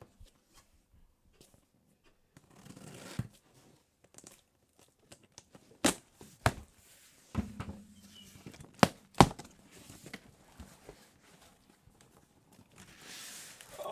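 Packaging being handled while the coilovers are unboxed: rustling and tearing, with four sharp knocks about six to nine seconds in.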